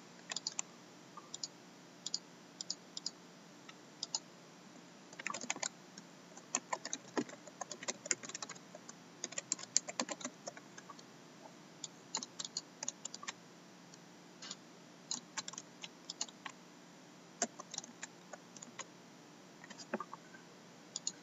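Typing on a computer keyboard in irregular runs of keystrokes, mixed with mouse clicks, as team names are entered into an online list randomizer.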